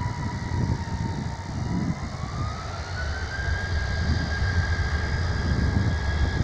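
Boeing 737-700's CFM56 jet engines spooling up. A whine rises in pitch two to three seconds in and then holds steady, over a low rumble.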